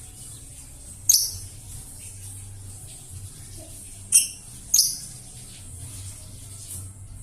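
Young lovebird calling: three sharp, high chirps, about a second in and twice near the middle, over a faint steady high chatter. Its voice is still hoarse, as is typical of a juvenile lovebird.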